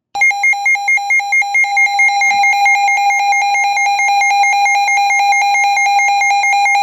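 Weather radio alert alarm: a loud electronic tone at one fixed pitch, beeping rapidly at first and then running almost unbroken with a fast flutter after about two seconds.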